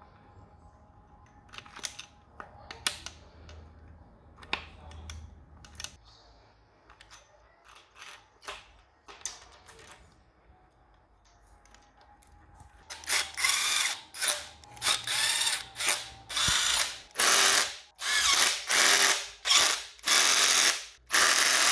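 A hand socket ratchet wrench working fasteners on an RB30 engine: scattered clicks and tool knocks at first, then about thirteen seconds in, loud repeated ratcheting strokes, roughly one to two a second.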